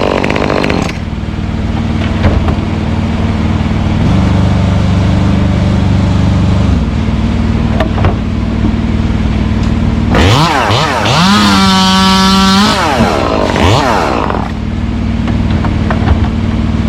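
Gas chainsaw running: loud for about the first second, then dropping to a steady idle. Around the middle it is revved to full throttle, holding high for about two seconds before falling back to idle.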